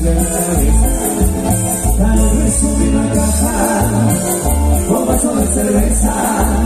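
Tropical cumbia band playing with a singer over a steady pulsing bass beat and constant high percussion.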